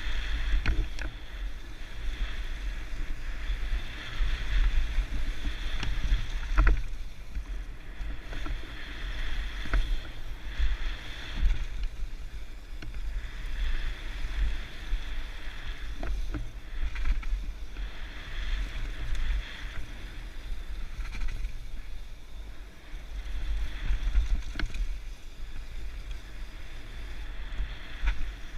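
Mountain bike descending a bike park trail: an uneven low rumble of wind on the microphone and a steady hiss of tyres on dirt, with scattered short knocks and clicks from the bike over bumps.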